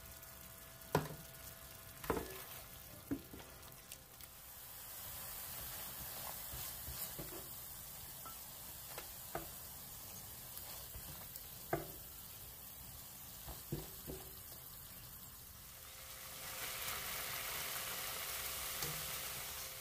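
Food sizzling in hot oil in a pan, with several sharp knocks of a utensil against the pan. The sizzle sets in a few seconds in and grows louder near the end.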